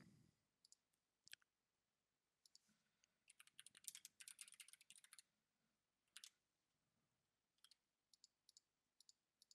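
Faint clicking of a computer keyboard and mouse: scattered single clicks, with a quick run of typing about three to five seconds in.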